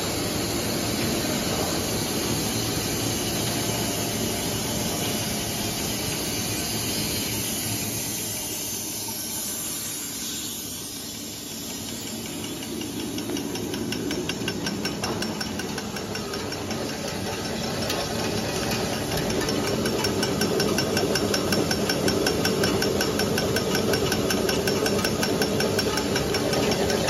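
Plastic drinking straw making machine running: a steady mechanical hum and hiss, joined about halfway through by a fast, regular clicking from the straw cutter that gets louder toward the end.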